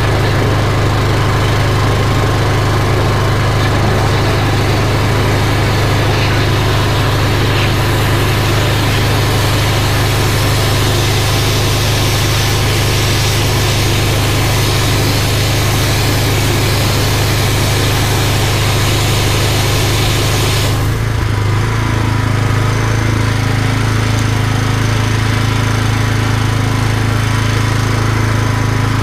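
Engine of a drain jetting machine running steadily, with the hiss of the high-pressure water jet blasting through the drain. About two-thirds of the way through the hiss drops away sharply while the engine keeps running.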